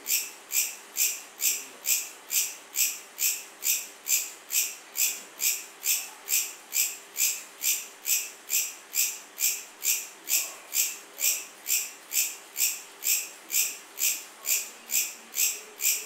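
Cricket chirping: short, high-pitched chirps repeating evenly, about three a second.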